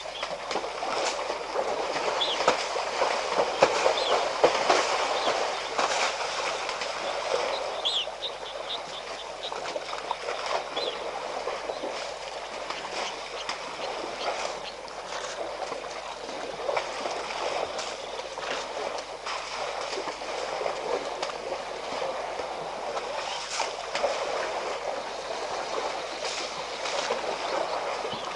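Wet mud and water splashing and slapping as African elephants and their calves wallow and roll in a muddy waterhole: a steady sloshing with many sharp slaps, busiest in the first several seconds.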